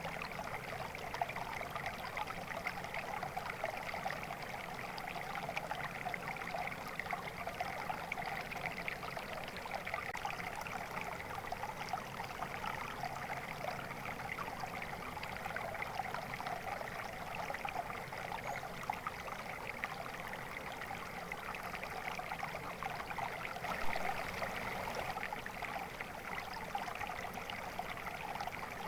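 Flowing stream water babbling and trickling steadily, a continuous splashing rush with no breaks.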